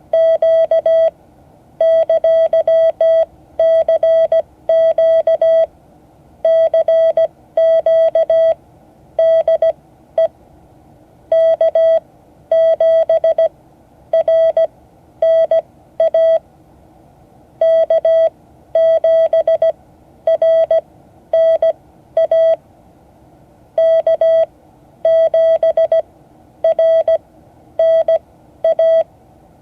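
Morse code sent as a single steady beep tone keyed on and off in dits and dahs, grouped into letters with short pauses between them: a CQ call being sent for the class to copy.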